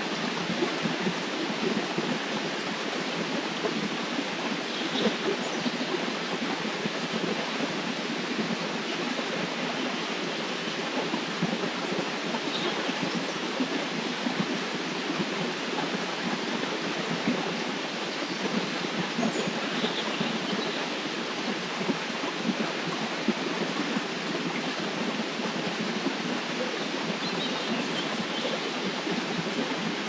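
River water flowing in a steady, even rush, with a few faint, brief high-pitched sounds now and then.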